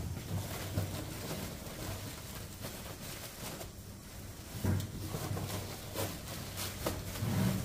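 Bakery work noise: a steady low hum under scattered knocks and clatter, with heavier thuds about halfway through and again near the end.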